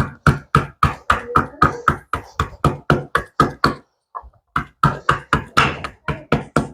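Pestle pounding unpeeled lemon and ginger in a mortar: a steady run of sharp knocks, about four a second, with a short break a little after the middle before the pounding starts again.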